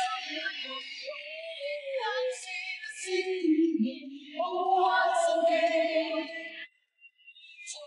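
Opening theme song of a TV drama: a singer holding long notes over a bright accompaniment. The music drops out briefly near the end before the next phrase.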